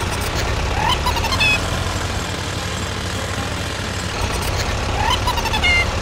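A vehicle engine running with a steady low rumble, joined by two short bursts of high rising chirps, about a second in and again near the end.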